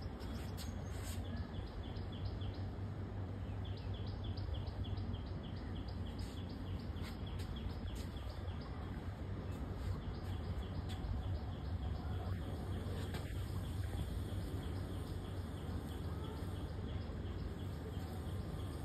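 Outdoor ambience: a small bird or insect chirping in quick, evenly repeated high notes over a steady low hum.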